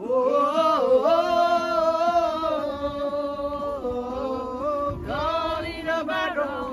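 Background music: a song with a sung vocal holding long, slowly wavering notes.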